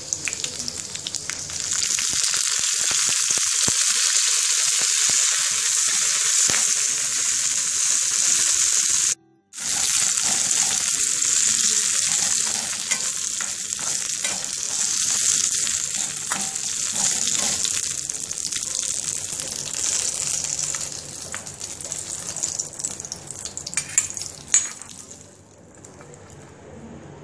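Dried red chillies and curry leaves sizzling in hot oil in a small frying pan, a loud, steady crackling hiss while the garnish is tempered. It stops for a moment about nine seconds in, then dies away over the last several seconds.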